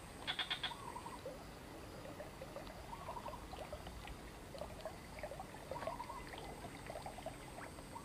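Faint small-animal calls: a short looping chirp that comes back every two to three seconds among scattered fainter chirps, with a quick run of clicks about half a second in.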